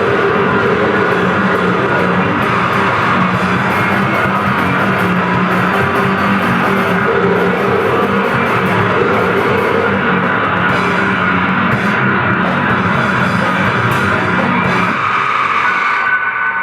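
Grindcore played by a full band: heavily distorted guitar and bass over fast blast-beat drumming, a dense, loud, unbroken wall of sound. The low end drops away about fifteen seconds in.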